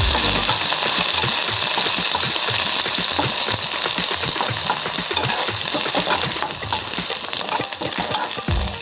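Ginger, green chillies, curry leaves and coriander leaves frying in hot cooking oil: a steady sizzle full of fine crackling, the tempering for a curry.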